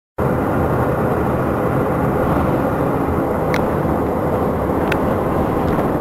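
Steady engine and road rumble inside a moving city bus, with two short high squeaks, about three and a half and five seconds in.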